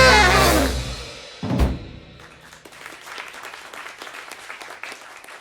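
A band of tenor, alto and baritone saxophones with drums ends the tune on a held chord. The horns slide down in pitch and die away about a second in, and a last drum and cymbal hit comes about a second and a half in. Light applause follows.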